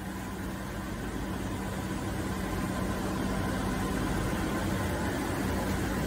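Steady machinery hum with a constant low tone, growing slightly louder.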